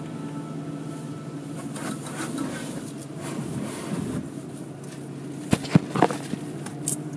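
Steady machinery hum heard from inside a car in an automatic car-wash tunnel, with a few sharp knocks about five and a half to six seconds in.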